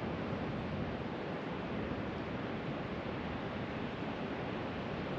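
Steady, even rush of wind and water at a lagoon shore, with no single events standing out.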